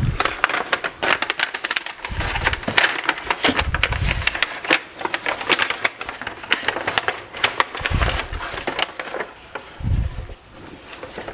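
Paper wrapping crinkling and rustling as it is unfolded by hand from around a book, with a few dull thumps as items are handled and set down.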